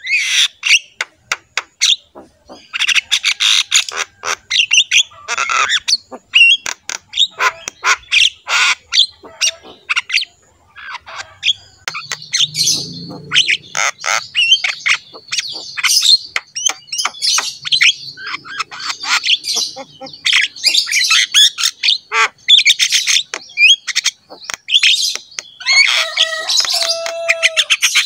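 Javan myna (white-vented myna) singing: a long, varied run of harsh squawks, sharp clicks and whistled notes, with a held lower note near the end.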